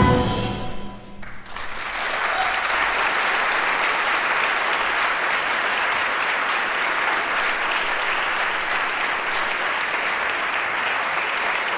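The last chord of a bassoon, piano, double bass and drums quartet fades out in the first second, then an audience applauds steadily.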